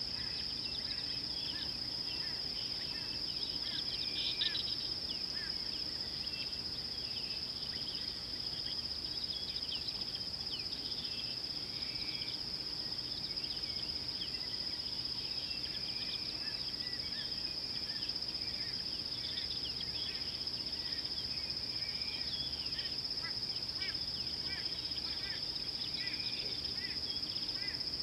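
A steady, high-pitched insect drone from cicadas or crickets, with many short bird chirps and calls over it.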